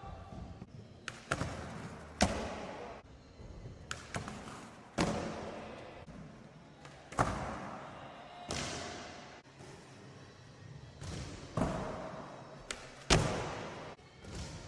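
Skateboard tricks on a plywood skatepark floor: repeated sharp clacks of the board striking the wood, each followed by the wheels rolling and fading away.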